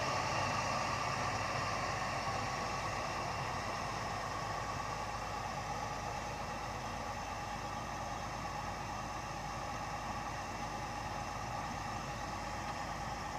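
1951 Chevrolet 3100 pickup's engine idling steadily, growing slightly fainter over the first few seconds and then holding level.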